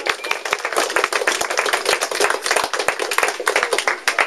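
A small group of people applauding, a dense, steady patter of hand claps.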